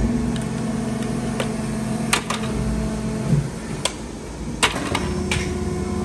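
Steady hum of factory machinery, with several sharp clacks of hard white plastic switch-plate frames knocking together as they are handled and put into a cardboard box.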